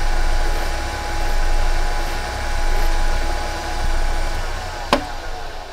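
Belt-driven metal lathe running at full speed, steady motor and drive hum, while a hand file is held against the spinning aluminum workpiece. About four and a half seconds in the pitch starts falling as the lathe is shut off and spins down, with one sharp click near the end.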